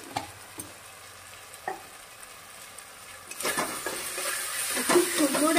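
Masala paste frying in oil in a kadai while a metal spatula stirs freshly added ground spices into it. It is faint at first with a couple of light spatula clicks, then the sizzle grows loud about three seconds in as the paste is turned over.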